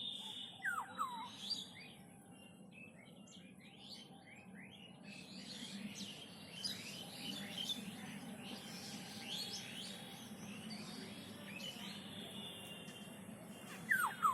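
Several birds chirping and calling in a dense chorus of short chirps. Two louder falling whistles come about a second in and again near the end, over a low steady hum.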